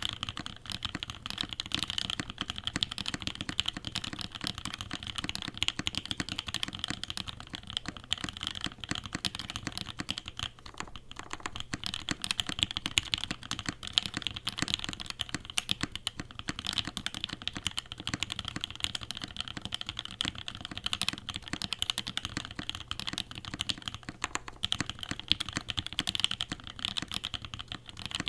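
Mechanical keyboard with HaluHalo switches being typed on continuously: a dense, steady stream of keystroke clacks.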